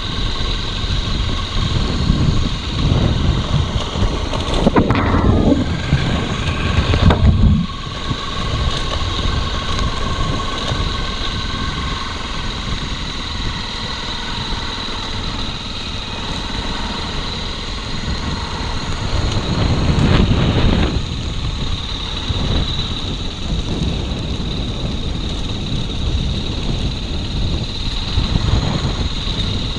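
Motorcycle engine running during a ride on a dirt road, with wind buffeting the microphone in heavy gusts. About five seconds in, the engine pitch falls as the revs drop, and a gust comes again around twenty seconds in.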